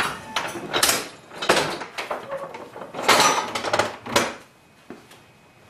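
Wall-mounted folding workbench being collapsed against the wall: a run of knocks, clatters and scrapes from the folding top and legs, stopping about four seconds in.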